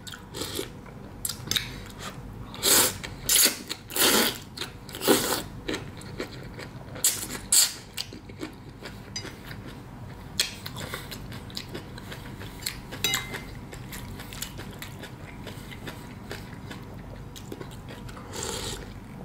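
A person slurping and chewing wheat noodles and beef close to the microphone: a series of short, loud slurps in the first eight seconds or so, then quieter chewing with scattered small clicks.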